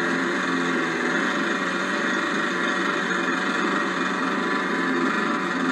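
Miniature prototype opposed-piston engine running steadily at a constant speed.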